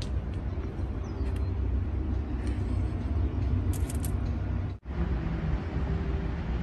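Steady low vehicle rumble, with a brief drop-out about five seconds in.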